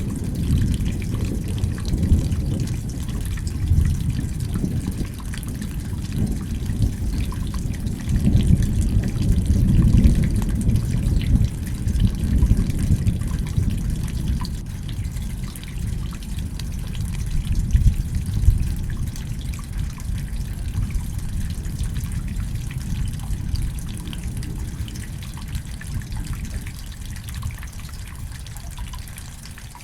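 Rain falling with dripping and trickling water, over a low rolling rumble of thunder that swells several times and eases off near the end.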